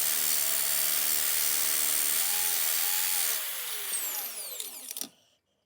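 Cheap electric drill bit sharpener running and grinding a drill bit's tip with a harsh hiss. It is switched off about three and a half seconds in, and the motor winds down with a falling whine until it stops near the end.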